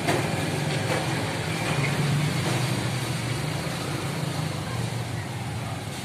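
A motor vehicle engine running steadily, a low even rumble.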